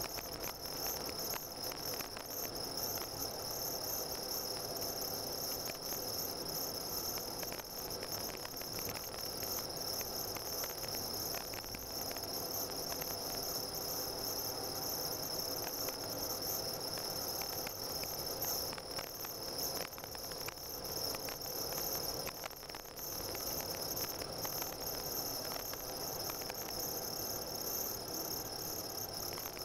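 Car driving on a packed-snow road, heard from inside the cabin: a steady high-pitched whine over low, even road noise, with scattered light clicks.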